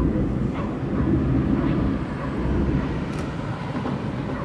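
Continuous low roar of the erupting Tajogaite volcano as lava fountains from its vent, swelling and easing slightly in loudness.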